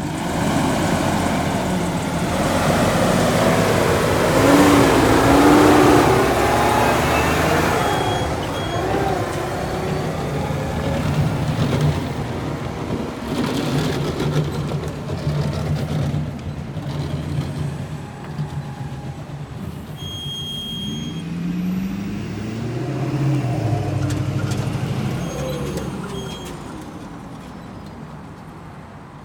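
Peterbilt tri-drive heavy-haul truck's diesel engine pulling a loaded lowboy away under load, its pitch climbing and dropping several times as it works up through the gears. Loudest a few seconds in, fading near the end as the truck moves off.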